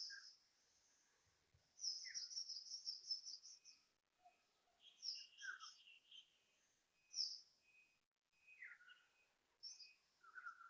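Faint bird-like chirps and calls: a rapid chattering trill for about two seconds, then scattered sharp high chirps and short whistles sliding down in pitch. The uploader takes them for fake bird sounds rather than real birds.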